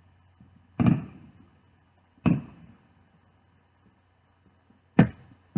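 Handling noise while drinking from a studded plastic tumbler with a straw: two dull thumps about a second and a half apart, then a sharper knock near the end.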